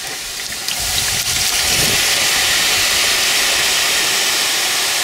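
Cold water poured onto a still-hot volcanic bomb, hissing steadily as it flashes to steam on the rock, a sign of how much heat is still held inside it. The hiss swells about a second in and then holds.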